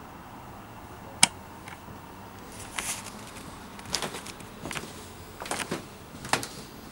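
A single sharp click about a second in, then irregular footsteps scuffing and crunching across a gritty, debris-strewn floor.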